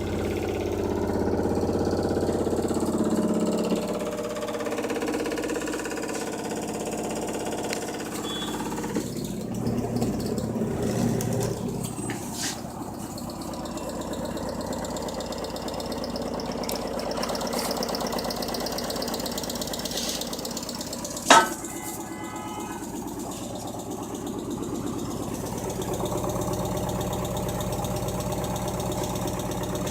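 LG washing machine running with a steady mechanical hum that shifts in pitch a few times, and a sharp loud clack about two-thirds of the way through.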